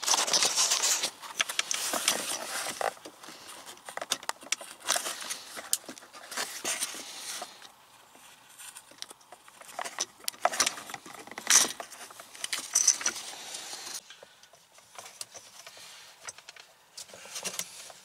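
Hands working plastic console trim and wiring harness connectors: a string of irregular clicks, taps and rustles, busiest in the first few seconds and sparser after.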